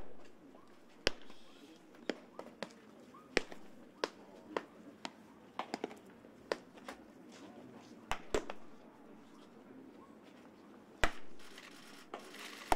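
Baseballs popping into catchers' leather mitts in a busy bullpen: irregular sharp pops from several pitchers throwing at once, some near and loud, others fainter. The loudest come about a second in, about three seconds in, twice in quick succession near eight seconds, and near eleven seconds.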